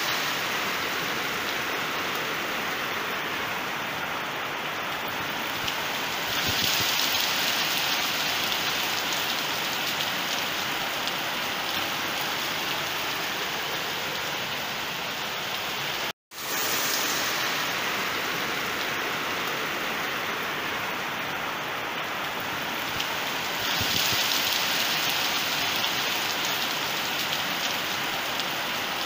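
Heavy monsoon rain pouring down in a steady hiss, cutting out for an instant about halfway through.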